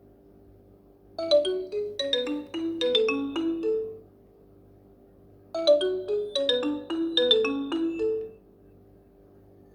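Nokia Asha 205 ringtone: a short marimba-like melody of quick struck notes, played twice with a pause of about two seconds between.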